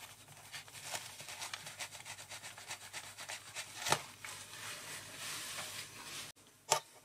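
Shop cloth rubbing and wiping a polished stainless steel bar held in a lathe chuck, many quick, faint rubbing strokes in fast-forward, with one sharper tick about four seconds in.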